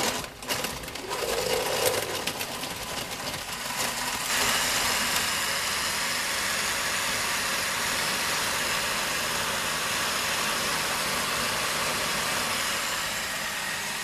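Oster countertop blender running on a load of ice cubes and smoothie ingredients: uneven and clattering for the first few seconds as the ice is chopped, then settling into a loud, steady whir about four seconds in.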